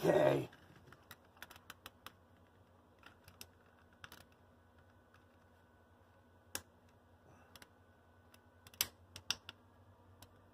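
Sparse small clicks and ticks of a plastic HO-scale locomotive shell and chassis being pried and worked with fingers and a small screwdriver, the shell stuck fast by a drop of glue. Right at the start there is a brief loud noise lasting about half a second, and a few louder clicks come together near the end.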